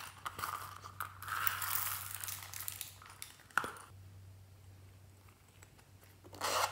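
Close rustling and crinkling as hands handle a rubbery zippered pouch over a tray of slime strewn with sequins and beads, with a sharp click about halfway through and more rustling near the end.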